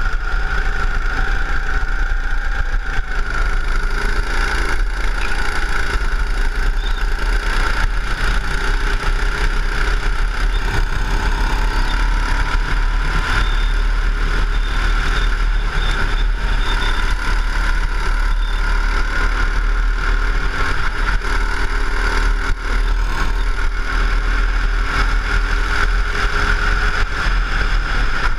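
Go-kart engine running steadily at speed through a lap, its pitch shifting slightly as the kart goes through the corners, with a strong steady low rumble underneath.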